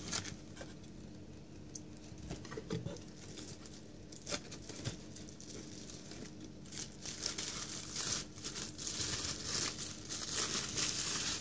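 Light taps and scrapes of a cardboard box being opened, then clear plastic wrapping around a Bluetooth speaker crinkling steadily for several seconds from about halfway in as the speaker is lifted out.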